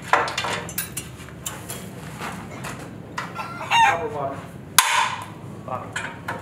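Wrenches clinking and knocking on a rusty steel boat-trailer frame while its bolts are undone. About three quarters of the way through there are short squeaky pitched glides, then a sharp metal clang that rings briefly.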